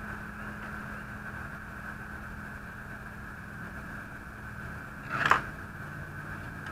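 Break-barrel air rifle, a Hatsan 125 TH .25, being cocked and loaded, then its barrel snapped shut with one brief clack about five seconds in, over a steady faint hum.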